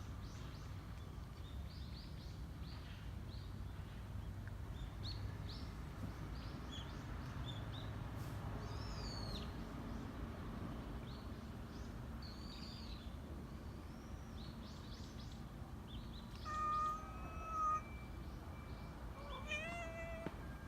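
A cat meowing twice near the end: first a long, level meow, then a shorter one that bends upward in pitch.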